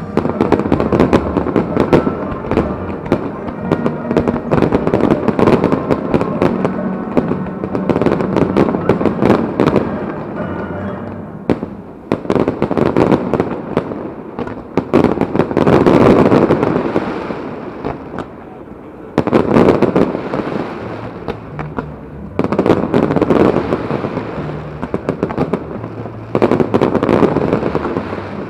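Large fireworks display: a dense, continuous barrage of bangs and crackling from many shells, fountains and crackling stars going off together. It comes in loud waves with short lulls between them.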